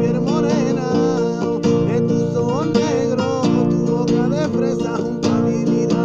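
Strummed acoustic guitar in a steady rhythm, with a man singing a wavering, ornamented melody over it, in Spanish rumba-pop style.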